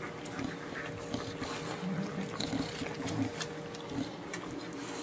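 Two-week-old bulldog puppies suckling at their mother: soft wet smacking and clicking, with faint little grunts.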